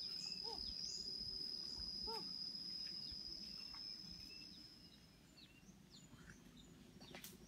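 Faint natural ambience: an insect's steady high-pitched buzz that stops about five seconds in, with a few short bird calls.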